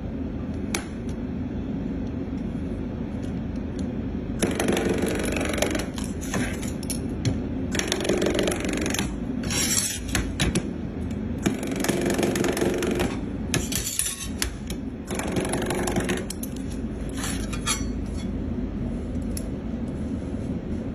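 Arc welding in several short runs of one to two seconds each: a crackling, hissing arc over a steady low workshop hum.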